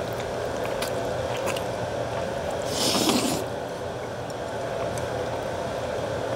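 A person eating jjajangmyeon black-bean noodles, with small clicks and one loud slurp of noodles about three seconds in, over a steady background hum.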